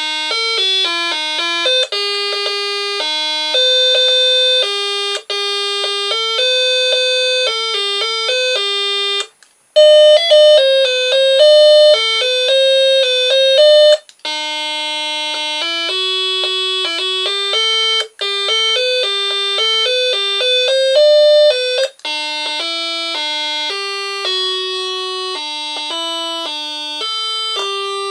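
Battery-powered doorbell chime playing loud electronic melodies through its small speaker, one tinny note after another. The tune breaks off briefly four times and another one starts, as the button is pressed again to step through its tunes.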